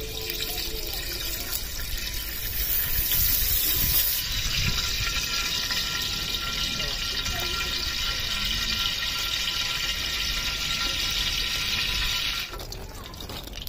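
Steady sizzling hiss from coconut oil heating in an aluminium pot over a wood fire, stopping suddenly near the end.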